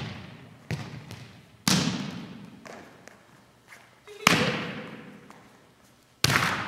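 Volleyball smacks: a ball being spiked and hitting the floor, sharp hits each followed by a long echo of a large gym. Three loud ones about two seconds apart, the last as the hitter jumps near the end, with lighter knocks between.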